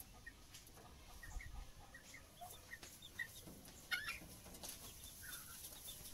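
Young chickens peeping and chirping softly with many short, high calls, and one louder call about four seconds in.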